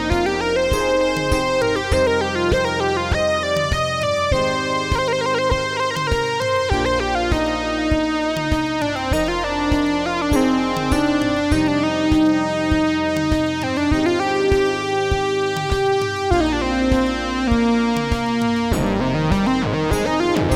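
Moog Matriarch semi-modular analog synthesizer playing sustained chords over a steady pulsing rhythm, with the pitch sliding into each new chord every few seconds.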